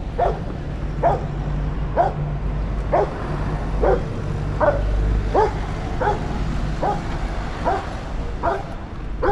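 A dog barking repeatedly, about a dozen short barks evenly spaced a little under a second apart, over a steady low rumble.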